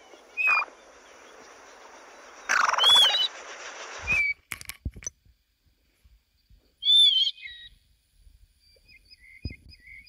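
Plover calls: a short whistle, then clear arched whistles about three and about seven seconds in, with a few short whistled notes near the end. A steady hiss runs under the first four seconds.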